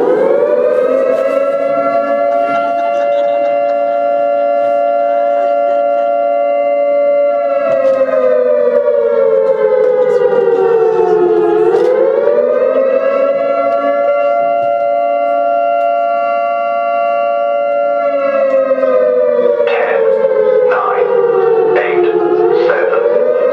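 Air-raid siren wailing in long cycles: the pitch holds high for several seconds, sinks slowly, then climbs back up, twice over.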